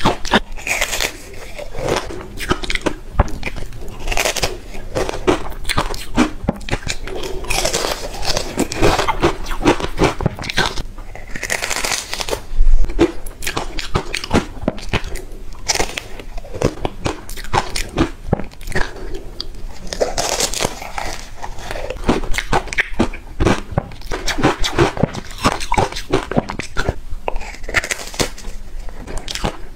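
Close-miked biting and chewing: a woman crunching through purple bars coated in green powder. Sharp crunches come at irregular intervals between softer chewing, with one especially loud crunch about twelve seconds in.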